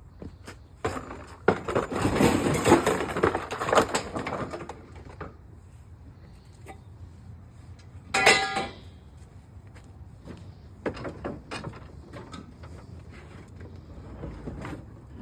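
Clattering and rustling of scrap being handled, with scattered knocks and a brief ringing sound about eight seconds in.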